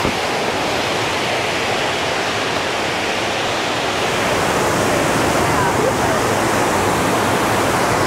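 Steady rush of water from the upper falls of Gooseberry Falls, growing a little louder about halfway through.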